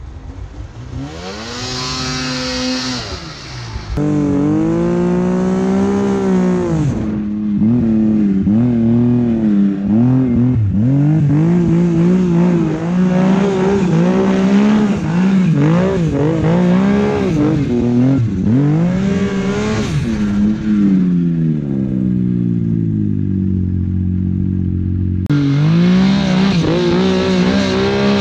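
Mountain snowmobile's two-stroke engine revving up and down over and over as the rider works the throttle through deep powder. The revs sink for a few seconds near the end, then jump sharply back up.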